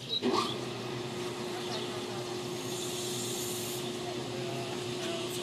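Taiwan Railways EMU900 electric commuter train standing at the platform: a short rising whine about a quarter second in, then a steady hum with a hiss from its onboard machinery.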